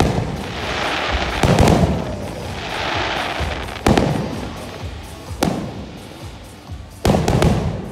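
Aerial fireworks bursting: four sharp booms about one and a half to two seconds apart, with a crackling hiss after the first, over music from the show.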